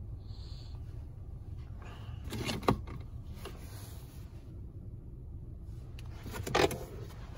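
Car centre-console plastic trim being handled: two short rubbing movements, each ending in a sharp plastic click, about four seconds apart, over a steady low cabin hum.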